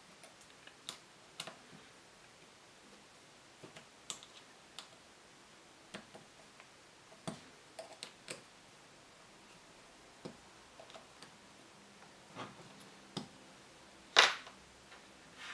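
Irregular light clicks and taps of small tools and metal engine parts being handled on a workbench, with one louder knock near the end.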